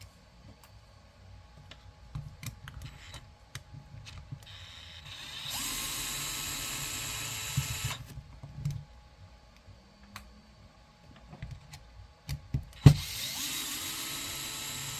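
Cordless electric screwdriver backing screws out of an RC crawler chassis: two runs of steady motor whine of about two and a half seconds each, each spinning up as it starts. Between them, small clicks of parts and screws being handled, and a sharp knock just before the second run.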